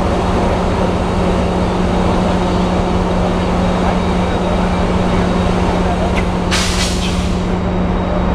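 Steady low rumble and hum of an idling diesel locomotive, with a short hiss of air released from the train's air brakes about six and a half seconds in.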